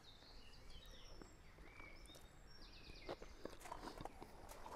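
Near silence: faint outdoor background with distant birds chirping, and a few faint clicks from about three seconds in.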